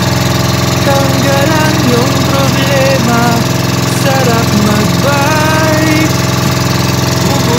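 Small engine of a wooden outrigger boat running steadily at constant speed, with voices talking over it.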